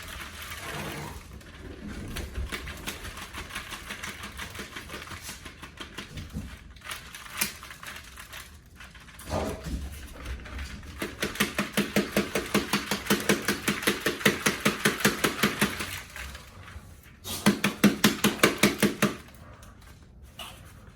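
A dried loofah gourd being handled and broken open, its brittle outer skin crackling and its loose seeds rattling. Scattered cracks come first, then two spells of quick, even rattling, about four strokes a second, in the second half.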